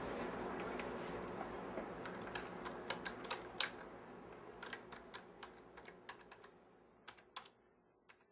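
Typing on a computer keyboard: irregular key clicks over a steady room hum that fades out toward the end.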